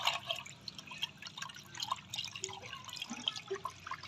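A hand swishing and stirring milky liquid in a glass bowl, with irregular small splashes and drips. The liquid is water, sugar, salt, milk and egg being mixed together before flour goes in for paratha dough.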